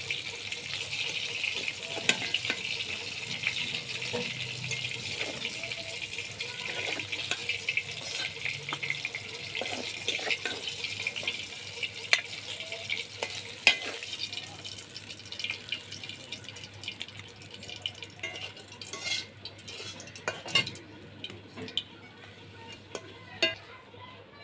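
Oil sizzling in a pan as pieces of fried rohu fish are lifted out, with scattered sharp clicks of a spatula against the pan. The sizzle fades over the second half.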